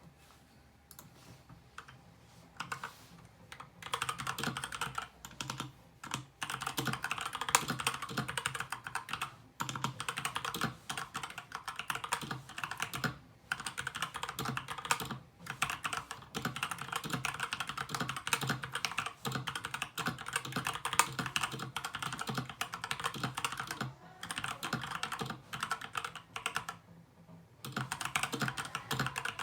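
SK61 mechanical keyboard with lubed Gateron Brown tactile switches and pudding keycaps being typed on. A few scattered keystrokes, then fast continuous typing from about four seconds in, broken by a few short pauses.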